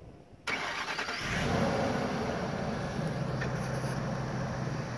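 2006 Ford F-250 Super Duty pickup's engine starting. A sudden start of sound about half a second in builds for roughly a second as the engine catches, then settles into a steady idle.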